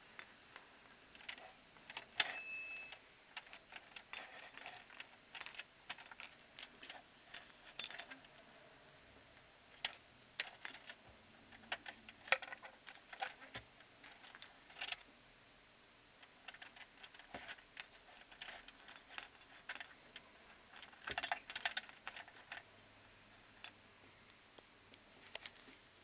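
Irregular clicks, knocks and rattles as a cash drawer and its plastic till insert are handled, with keys jangling at the drawer's lock.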